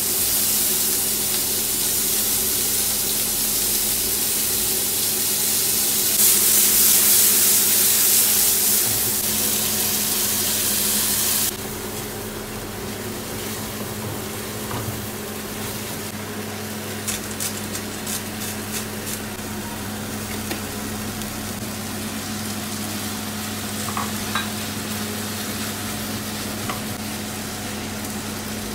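Oil sizzling in a frying pan as lime leaves and stink beans are stir-fried with a wooden spatula: a loud steady hiss, loudest from about six to nine seconds in, that drops sharply just before halfway. After that a quieter sizzle of chilli-and-tomato sambal being stirred and pressed, with light clicks and scrapes of the wooden spatula.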